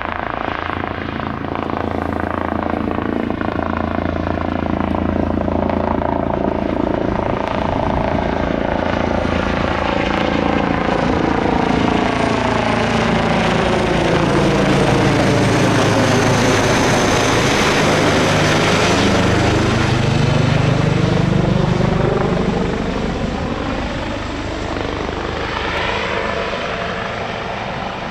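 Eurocopter EC135 twin-engine helicopter flying past close by: its rotor and turbine sound builds to a peak a little past the middle, with a sweeping, phasing shift in tone as it passes, then fades over the last few seconds.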